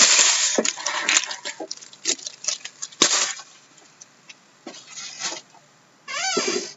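Plastic wrapping and cardboard rustling and tearing as a box of trading cards is opened, in loud bursts at the start and again about three seconds in, with scattered light taps and clicks between. Near the end there is a short wavering tone that bends up and down.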